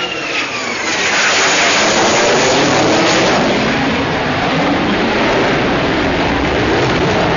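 F/A-18 Hornet fighter jet's engines during a display pass overhead: a falling whine fades in the first second, then a loud, steady jet roar.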